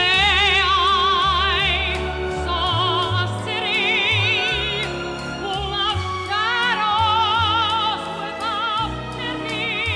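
Woman singing in a full, operatic voice, holding long notes with a wide vibrato, over instrumental accompaniment with a moving bass line.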